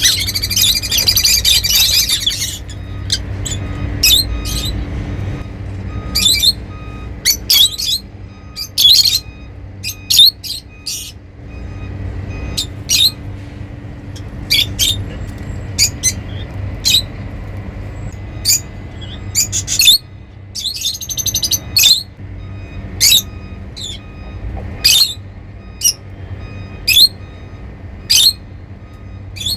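Lovebirds calling: a burst of fast, shrill chattering, then sharp high chirps about once a second, with another short chattering burst about twenty seconds in.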